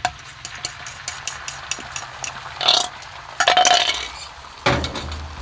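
Beaten eggs hitting a hot Blackstone steel flat-top griddle, sizzling and crackling with rapid pops, with a few louder knocks and clinks from the bowl and utensils.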